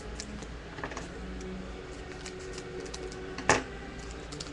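Small clicks and taps of trading card boxes and packs being handled, with one sharp knock about three and a half seconds in.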